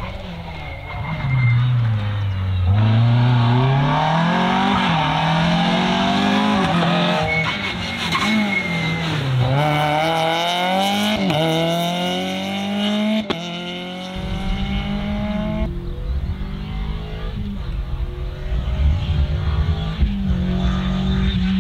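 Rally car engines revving hard through the gears on a closed stage. The engine pitch climbs and drops back with each upshift, several times over, and the sound changes abruptly where one car's pass gives way to the next.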